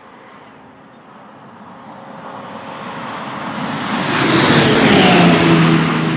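2014 Audi R18 e-tron quattro LMP1 race car's V6 turbodiesel passing at speed. It builds from faint to loud over about four seconds, and its pitch drops as it goes by.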